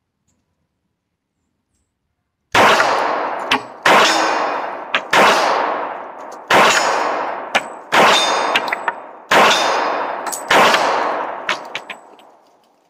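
Seven shots from a Smith & Wesson Performance Center 1911 pistol in .45 ACP, fired at a steady pace about 1.3 seconds apart starting about two and a half seconds in. Each shot is followed by a long echoing tail, with a few lighter ticks between shots.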